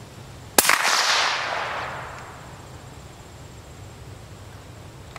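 A single shot from a .308 CZ 557 bolt-action rifle through a Q Half Nelson titanium suppressor, about half a second in: a sharp crack followed by a trailing echo that fades over about a second and a half.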